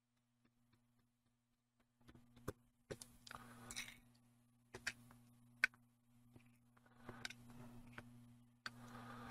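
Small screws and parts clicking and rattling in a plastic parts dish as a screwdriver tip picks through them, starting about two seconds in with a handful of sharp clicks and short rattles, over a faint steady low hum.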